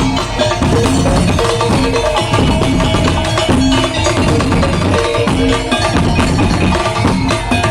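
Madurese tong-tong (ul-daul) ensemble playing: fast, dense wooden knocking percussion and drums under short repeated melodic figures, loud and unbroken.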